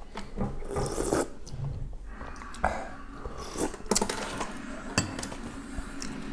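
A person eating wonton soup with a metal spoon: slurping broth, chewing, and a few sharp clicks of the spoon against the ceramic bowl.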